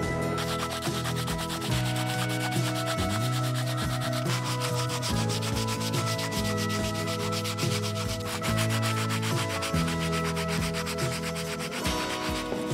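Sandpaper rubbed by hand over a charred wooden rod, a dry scratchy rasp of rapid back-and-forth strokes, sanding the burnt surface back.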